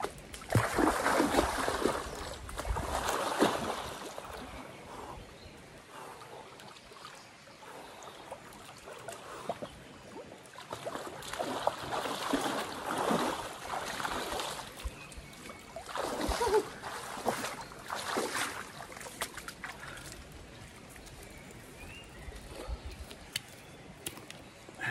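Water splashing and sloshing as a person dips into a cold river, in several bursts, over the steady flow of the river.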